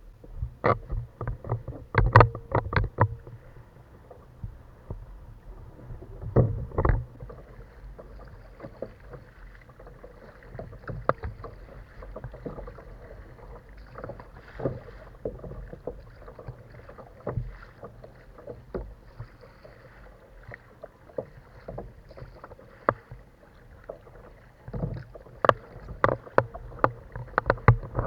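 Sounds of a kayak on the water: irregular knocks and splashes against the hull over a steady wash of water noise, heaviest in clusters near the start, about a quarter of the way in, and near the end.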